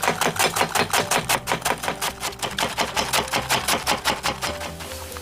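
Fast, even knife chopping on a cutting board, about six strokes a second, over background music.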